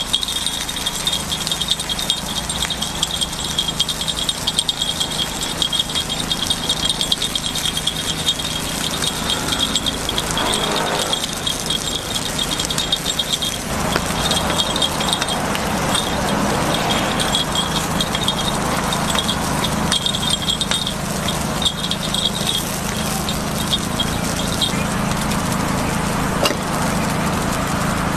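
Rapid light metallic clicking of takoyaki picks against the takoyaki pan as the balls are turned, over a steady low hum. The clicking stops about 25 seconds in.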